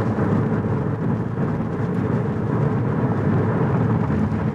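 Steady road and tyre noise inside the cabin of an electric car driving at speed: a constant low rumble with no engine note.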